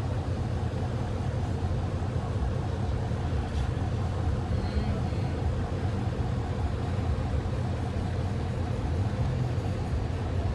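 1980 Pontiac Trans Am's V8 engine running steadily at low speed, a low rumble heard from inside the car's cabin as it rolls along.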